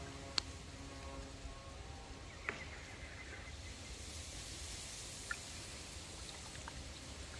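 Faint outdoor ambience by the water: a steady low rumble with a few brief, sharp sounds about half a second, two and a half seconds and five seconds in.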